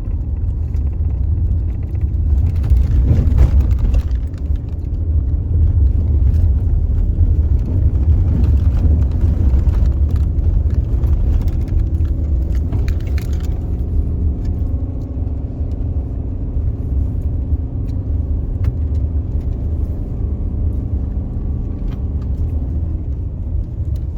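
Subaru Forester being driven: a steady low rumble of engine and road noise. Tyre and wind hiss is louder over the first half and eases off about halfway through, leaving a steadier engine hum.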